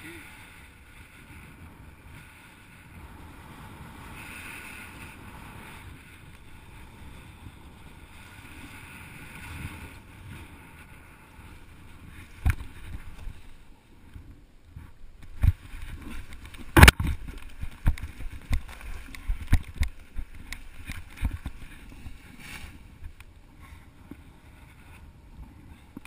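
Wind buffeting the microphone of a paraglider pilot's camera in flight, then, from about halfway, a run of sharp knocks and thuds as the pilot lands in scrubby brush, the loudest about two-thirds of the way through.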